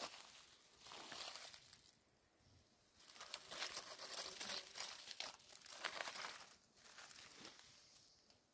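Dry fallen leaves rustling and crackling under a hand as it digs through the leaf litter to pick a mushroom, in a short burst about a second in and a longer stretch in the middle.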